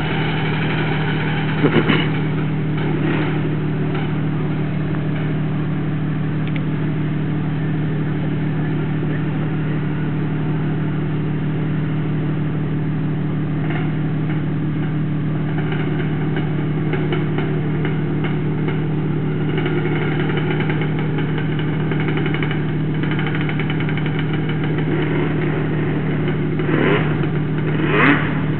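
Jeep Wrangler engine idling steadily. A few brief louder sounds cut in over it, about two seconds in and twice near the end.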